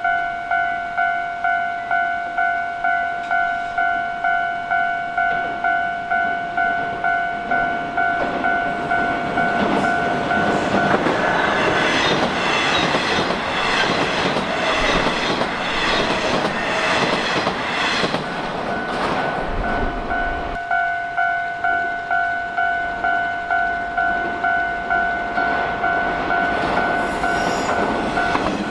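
Japanese level-crossing warning bell dinging about twice a second while a Nishitetsu electric train passes over the crossing, with rushing noise and rhythmic clickety-clack of the wheels over the rail joints that drown the bell for several seconds in the middle before it is heard alone again.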